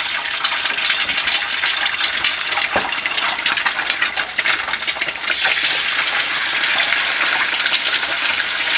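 Eggs frying in hot oil in a frying pan, a steady crackling sizzle with one sharp tap about three seconds in. The sizzle grows louder about halfway through as a second egg goes into the pan.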